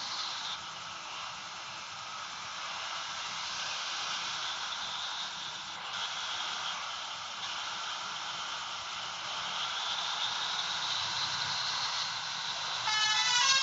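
A steady hiss, then about a second before the end a telolet horn, a multi-trumpet bus air horn, starts playing its melody in stepped, chord-like tones.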